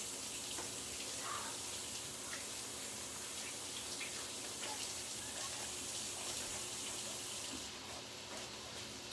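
Kitchen tap running as a hand is rinsed under it, turned off about eight seconds in. Bacon frying in a pan goes on underneath.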